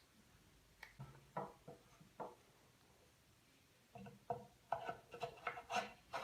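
Faint knocks and scrapes of wooden workpieces being handled: a few short taps a second or so in, then a quicker run of them in the last two seconds.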